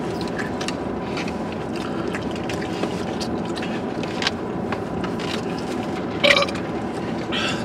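Eating sounds: plastic forks scraping and clicking in takeout food containers, and chewing, over a steady hum inside a car's cabin. A short, louder sound comes about six seconds in.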